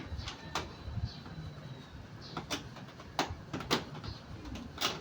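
A series of sharp clicks and knocks from parts and tools being handled during repair work, about five at irregular intervals, the loudest near the end.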